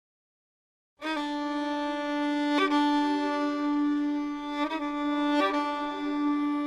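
Solo bowed string instrument, violin-like, coming in about a second in after total silence and playing long held notes that change pitch a few times.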